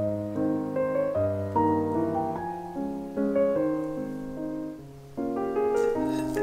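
Background piano music, a gentle run of notes that thins out just before five seconds in and then picks up again.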